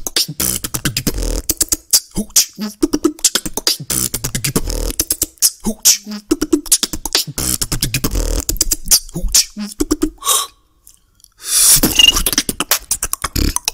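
Solo beatboxing: fast vocal percussion of kick drums, snares and hissing hi-hats, stopping for about a second near the eleven-second mark before a loud hissing burst.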